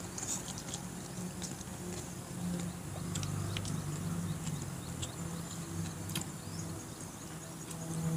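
Close-up eating sounds: chewing with scattered wet mouth clicks and smacks, over a low steady hum.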